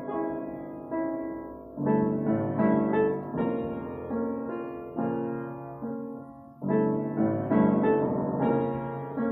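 Solo piano playing a slow piece in chords, each chord ringing and fading before the next; fuller chords are struck about two seconds in and again near seven seconds.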